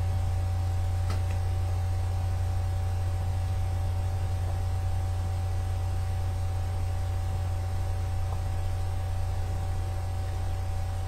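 Steady low electrical hum with a faint hiss over it, and one faint click about a second in.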